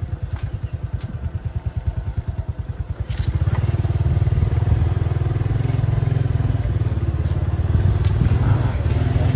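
Motorcycle engine running as the bike is ridden, a quick low putter at first that grows louder and steadier about three seconds in.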